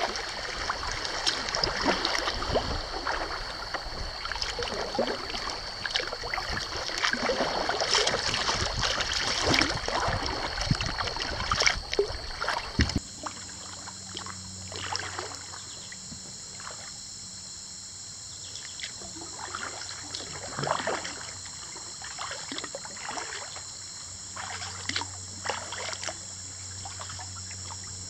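Kayak paddle strokes: the blades dip and splash, and water drips and trickles off them, with a steady high buzz of insects underneath. Busier and louder for the first half, then quieter with fewer, sparser strokes.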